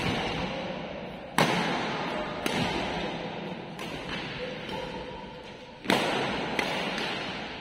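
Badminton rally: rackets striking the shuttlecock, six sharp hits about one to two seconds apart, the first, second and fifth loudest, each ringing on in the hall's echo.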